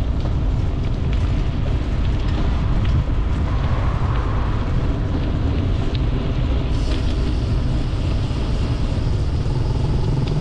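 Wind buffeting the microphone while riding a bicycle along a road: a loud, steady low rumble.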